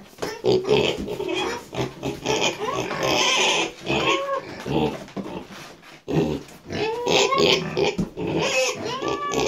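Pet pigs grunting and squealing in short, repeated calls that come on and off, with a brief lull midway.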